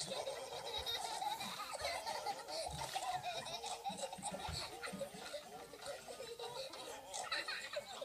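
Young child laughing continuously.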